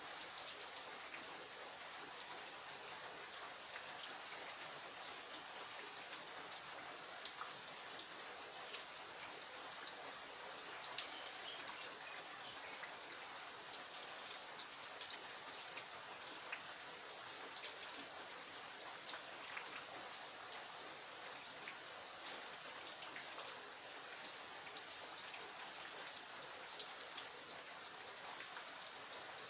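Steady rain falling, a constant hiss with many small drops ticking and pattering on surfaces.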